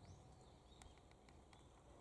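Near silence with a few faint, short, high bird chirps over low outdoor background hum.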